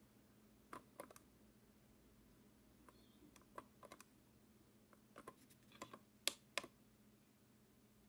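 Irregular small clicks from the combination dial of a 3D-printed password locker being turned by hand, in short clusters, with two louder clicks near the end.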